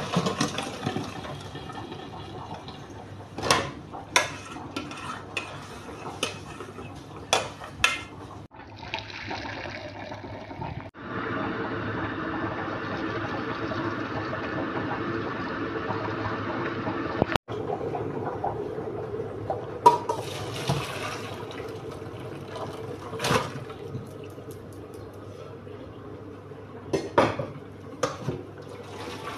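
Metal pots, lids and utensils clattering and knocking while cooking at the stove, in scattered bursts. In the middle a steady hiss runs for several seconds, then cuts off abruptly.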